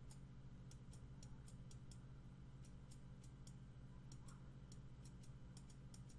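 Faint computer mouse clicks, about three a second, over a low steady hum, near silence.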